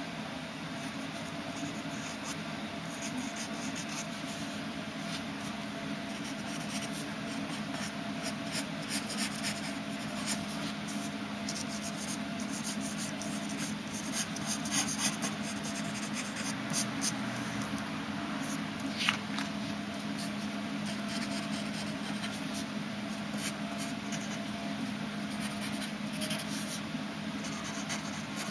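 Wooden graphite pencil scratching across paper in many short, repeated strokes, over a steady low hum. One sharper tick stands out about two-thirds of the way through.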